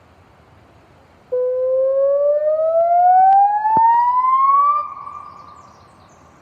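Puntledge River electronic loudspeaker warning siren sounding a test. A loud tone cuts in about a second in and rises steadily in pitch for a few seconds. It then drops back to a fainter steady tone that fades away.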